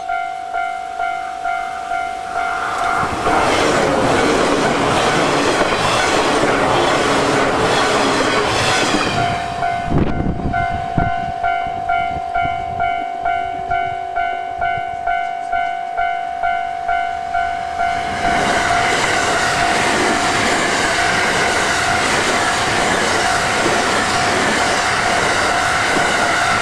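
Japanese level-crossing warning bell ringing steadily at about two strikes a second, while a train rushes past the crossing for several seconds. The bell then rings on alone until a second train passes near the end.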